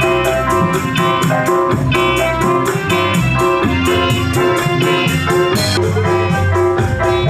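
Live dangdut band playing an instrumental, with an electronic keyboard carrying the melody in an organ-like tone over bass and a steady quick percussion beat.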